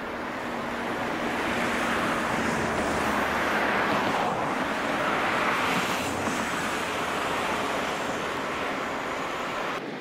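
Road traffic: a vehicle passing on the highway, its tyre and engine noise swelling over a few seconds and fading again, cut off abruptly near the end.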